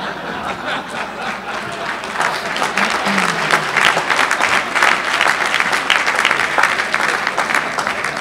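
Audience laughing and applauding. The clapping thickens after the first couple of seconds, is heaviest in the middle, and thins out near the end.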